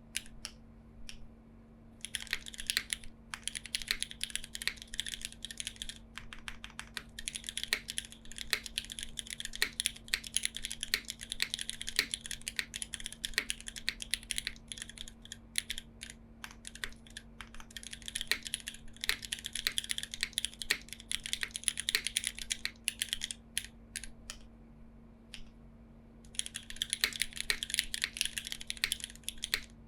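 Custom Krush65 mechanical keyboard with lubed Cherry MX2A switches on an aluminium plate and GMK keycaps, typed on in fast, dense runs of keystrokes. There is a short lull at the start and another about five seconds before the end. A faint steady hum sits underneath.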